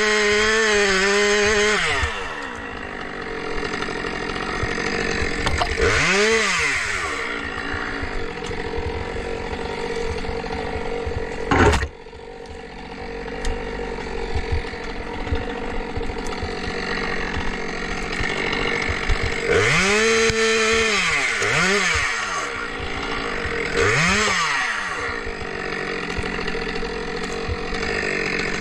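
Two-stroke chainsaw held at full throttle, then dropping back and blipped up and down several times between spells of lower running. A single sharp, loud impact sounds near the middle.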